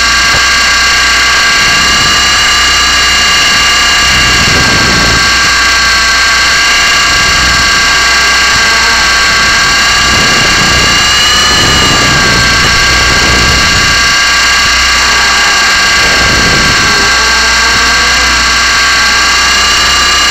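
Small electric motor of an RC model whining steadily at high pitch, the pitch briefly rising and dipping about eleven seconds in.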